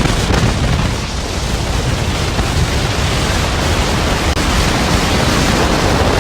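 Loud, steady rushing noise of wind and sea water across the microphone, even from low to high pitch, with a brief dropout about four seconds in.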